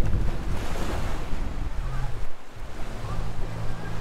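Wind and water rushing past a 55-foot performance catamaran sailing fast under full sail, with wind buffeting the microphone. A steady low hum comes in about three seconds in.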